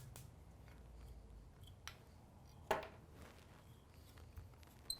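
Faint scratching and light clicks of a fly-tying tool picking out spun Arctic fox dubbing fibres on a fly in the vise, with one sharper click about two and a half seconds in.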